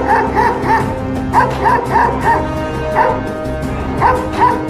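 A Doberman pinscher barking in quick runs of three to five barks, with short pauses between the runs, over background music with held notes.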